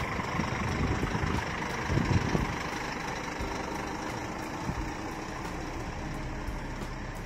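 Scania G410 prime mover's 13-litre turbodiesel running as the truck pulls away and drives off. The low rumble swells about two seconds in, then slowly eases as the truck moves away.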